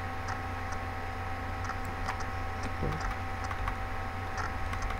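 A few faint, irregular clicks of a computer mouse and keyboard over a steady electrical hum.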